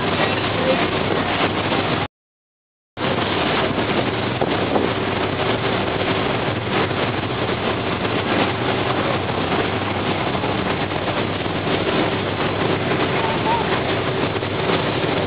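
Steady rush of wind on the microphone and churning water from a ferry's wake, under a low steady engine hum. The sound cuts out completely for under a second about two seconds in.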